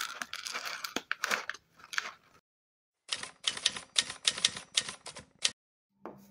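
Clattering for about two seconds, then after a short silence a typewriter sound effect: a run of sharp key clacks, several a second, stopping about a second before the end.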